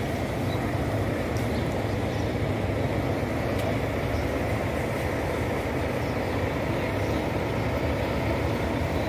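Diesel engine of an intercity coach bus idling at a steady, low rumble.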